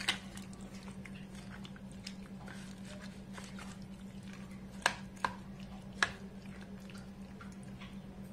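Wet squishing as a spoon and hand mix chicken pieces into a curd-and-spice marinade in a plastic tub, with a few sharp clicks of the spoon against the tub about five and six seconds in. A steady low hum runs underneath.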